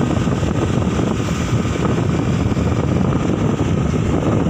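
Riding a motorbike: steady wind rush on the microphone over the engine running.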